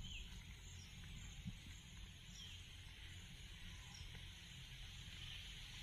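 Faint outdoor ambience: a steady high insect hiss with a few short high chirps, over a low rumble.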